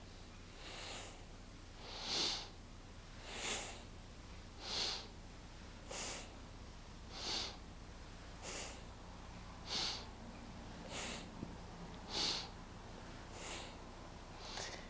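A woman breathing rhythmically through the nose, inhaling and exhaling in turn about once every 1.3 seconds, each breath paced to a forward and back spinal flex.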